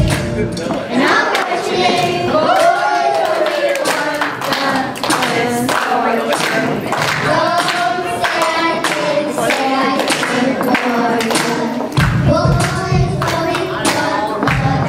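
Two girls singing a song into microphones over an amplified sound system, with hand clapping keeping a steady beat. A bass-heavy backing track comes in about twelve seconds in.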